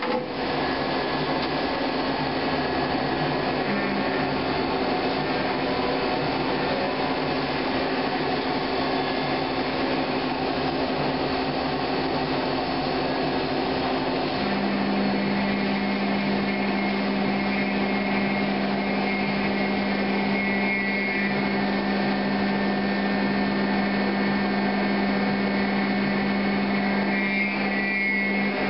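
Okuma Genos L300E-M CNC lathe running with its spindle turning the chucked workpiece: a steady machine hum of several held tones. A low tone sets in about 4 s in and grows much stronger about 14 s in.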